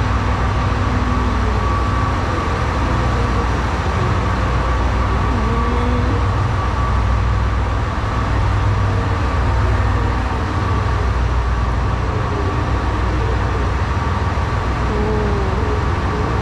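Steady low rumble of a diesel train's engine idling while it stands at the platform.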